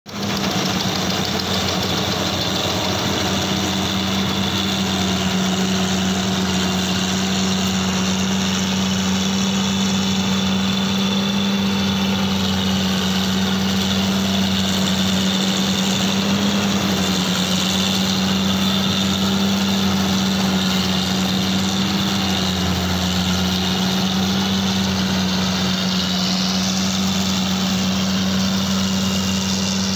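CLAAS Crop Tiger tracked combine harvester running steadily as it cuts and threshes paddy: an even, unbroken diesel engine hum with machinery noise over it.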